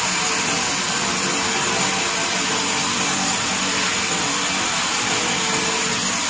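Vertical band sawmill ripping a timber beam as the carriage feeds it through the blade: a steady, hissy sawing noise over the running machine.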